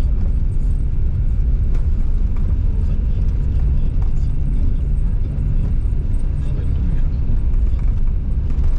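Steady low rumble of a car's engine and tyres heard from inside the cabin while driving on a snow-covered road.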